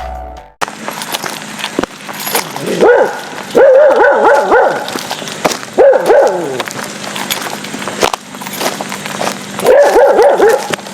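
A dog barking and yipping in four quick runs of barks, each run lasting about half a second to a second.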